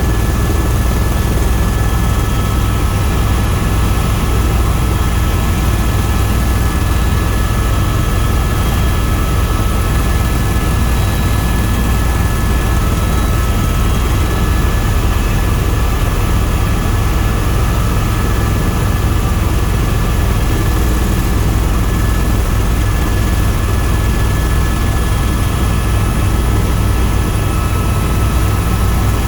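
Tour helicopter in steady cruise: a loud, constant drone of the rotor and engine, with a steady high whine over it.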